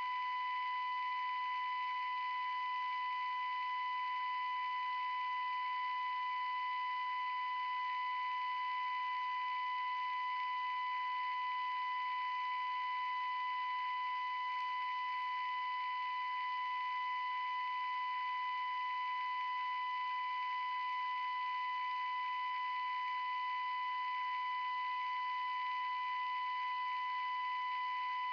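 A steady high-pitched electronic tone with fainter overtones above it, over a faint hiss, holding one pitch and level without a break.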